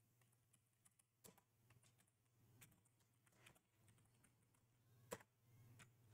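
Faint typing on a computer keyboard: scattered single keystroke clicks, the loudest about five seconds in, over a faint steady low hum.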